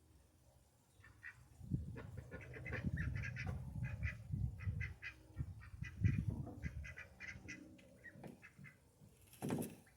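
Ducks quacking in rapid, overlapping series, over a low rumble.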